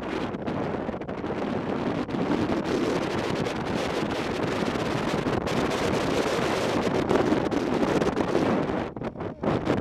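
Steady wind rush buffeting the microphone of a camera on a moving motorcycle, mixed with the motorcycle's running noise. The rush drops away briefly near the end, then returns.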